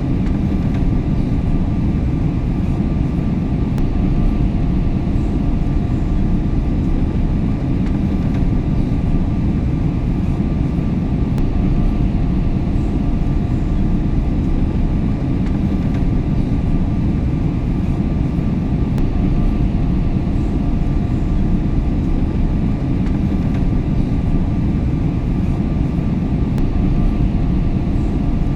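Airplane cabin noise in flight: a steady, even rumble of engines and airflow, heaviest in the low end, with a faint constant hum on top.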